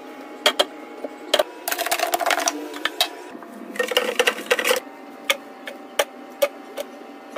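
Clear plastic storage boxes clicking and tapping as they are handled and set down on the counter, with paper towel rustling twice as it is pressed into a box, once about two seconds in and again around four seconds in. Bunches of grapes set into the box add soft knocks near the end.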